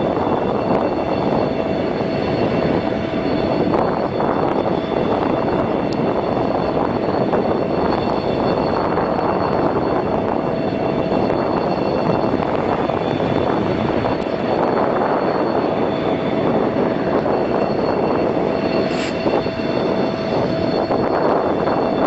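Heavy snow-clearing machinery running steadily: a loud, even noise with a steady whine over it.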